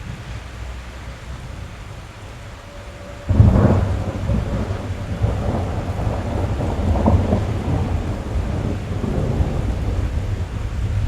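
Rain drumming on a car roof, heard from inside the cabin. About three seconds in a sudden loud thunderclap breaks and rolls on as heavy, swelling rumbling.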